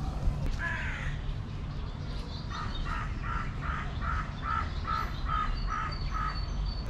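A bird calling outdoors, a regular run of about ten short calls at two or three a second, with a fainter high call near the end over a steady low background rumble.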